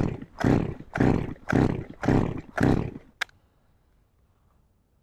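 Stihl MS201T chainsaw being cranked on its recoil pull-starter during a compression test, with a gauge in place of the spark plug so it does not fire. About six quick pulls, roughly two a second, each a rasping whirr of the cord with the engine turning over against compression. A sharp click follows about three seconds in, then quiet.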